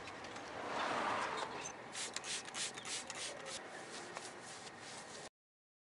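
Cloth wiping and rubbing over a pickup truck's painted fender in a run of quick strokes; the sound cuts off suddenly near the end.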